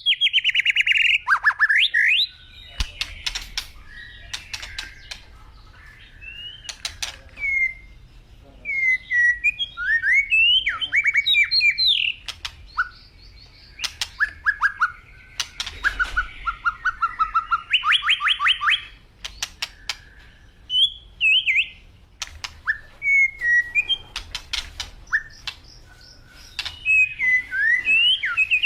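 A flock of flamingos calling: loud runs of quick chirps and short downward-sweeping notes, many birds overlapping, with brief lulls between bursts.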